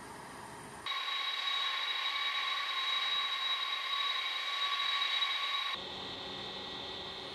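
Jet engines of taxiing aircraft: a steady high whine with several constant tones starts about a second in. A little before the end it cuts to quieter, duller engine noise as heard inside a cockpit.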